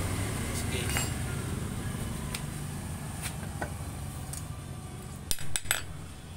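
Metal hand tools clinking against each other and the floor: a few scattered light clicks, then three sharp clinks close together near the end, over a low steady rumble.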